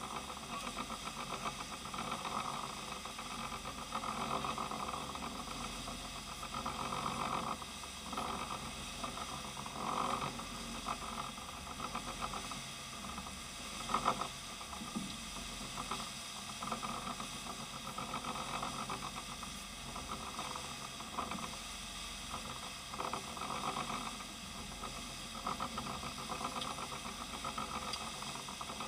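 A sport-fishing boat's engines drone steadily under the hiss and rush of the wake while trolling, the sound swelling and easing with the sea. About halfway through there is a single short knock.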